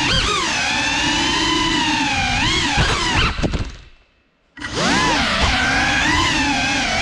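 Brushless motors and propellers of a GEPRC Cinelog 35 cinewhoop drone whining, the pitch rising and falling with the throttle. The whine fades to almost nothing about three and a half seconds in and comes back strongly a second later as throttle is reapplied.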